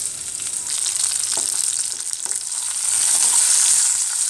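Drumstick (moringa) pieces frying in hot oil in a pan with a tempering of seeds and dried red chilli: a steady sizzle, stirred with a wooden spatula, with a few light clicks. The sizzle grows louder about three seconds in.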